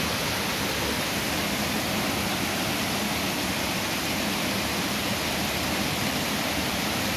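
Water spilling over a low weir step into a pool: a steady rushing hiss.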